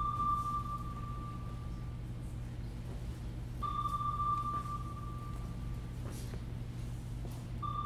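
Sonar ping sound effect played over the theatre's sound system: three pings about four seconds apart, each a single high tone that fades away over about two seconds, over a steady low hum.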